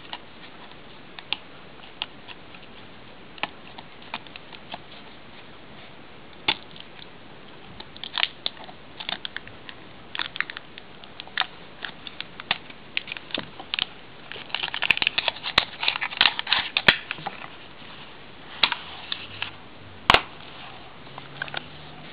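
A small toy package being opened by hand: scattered clicks and crinkling, busiest about fifteen seconds in, with a sharp snap near the end.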